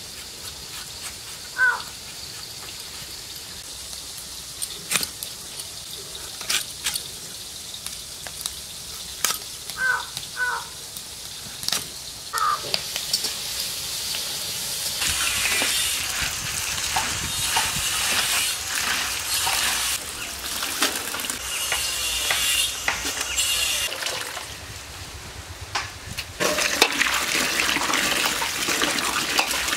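A raw mango being peeled against a curved blade, with scattered scraping ticks and a few short high chirps. From about halfway the sound turns to water splashing, and near the end it gets louder as a stream of water pours into a steel bowl while cut brinjal pieces are rubbed clean by hand.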